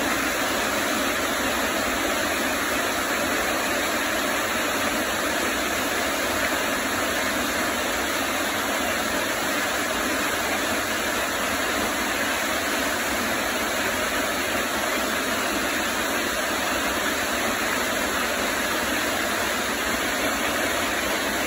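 Waterfall cascading down a rock face and pouring onto a person standing beneath it, heard close up as a loud, steady rushing of water.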